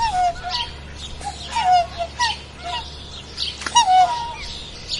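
Waterfowl calling: a string of short honking calls, each falling in pitch, coming several times a second with two louder ones midway and near the end.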